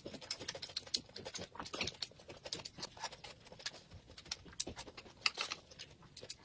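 Close-miked eating of boiled dumplings: chewing, slurping and wet mouth smacks coming as a dense, irregular run of small clicks.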